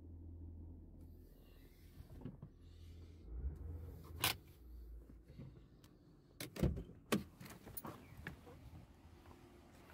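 Sharp clicks and low thuds of a car door being opened and someone climbing out, the loudest cluster a little past the middle, after a low steady hum at first.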